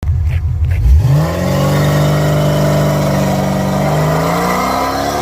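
Car engine accelerating: a low rumble rises in pitch about a second in, holds steady, then climbs again near the end.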